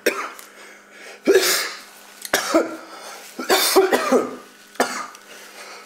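A man coughing in four bursts, the result of drawing smoke from a blunt.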